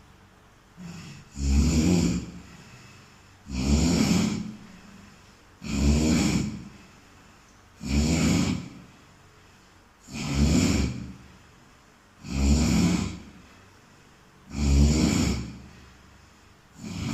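A sleeping person snoring in a steady, even rhythm: a snore about a second long roughly every two seconds, with quiet breaths between.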